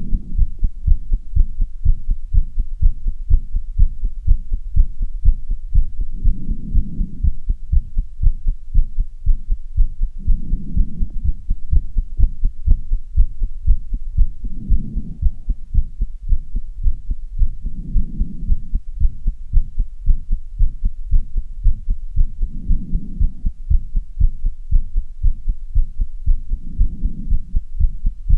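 Rapid, regular heartbeat thumps, racing after strenuous exercise. Roughly every four seconds a longer, softer swell of heavy breathing rises under them.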